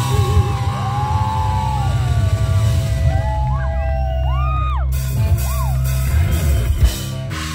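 Hard rock band playing live: heavy distorted guitars, bass and drums, with bending guitar notes over the top. The heavy low end drops away near the end.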